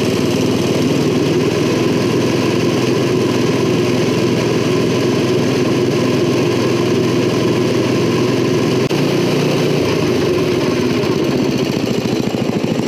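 A 5-horsepower Briggs & Stratton single-cylinder engine running steadily on part throttle, turning a chain-driven rear shaft; the owners call the engine a bit worn out.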